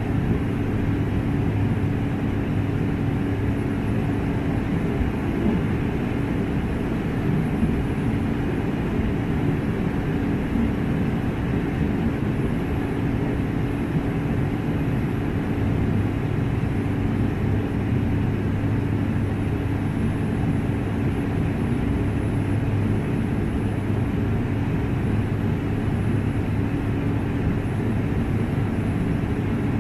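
De Havilland Otter floatplane's engine and propeller in cruising flight, a steady drone with a low hum heard inside the cabin, unchanging throughout.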